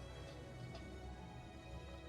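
Quiet film score music with soft sustained tones.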